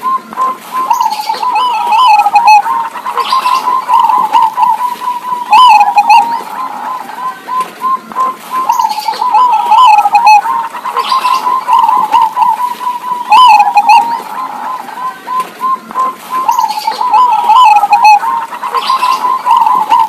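Zebra doves (perkutut) cooing. Phrases of quick, staccato coos repeat every couple of seconds and overlap as the birds answer each other.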